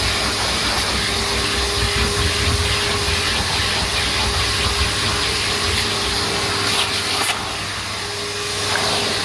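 Numatic NTD570 vacuum cleaner running steadily with a motor whine, its suction noise shifting as the nozzle works the stairs. About seven seconds in the sound briefly drops and the whine fades, then comes back.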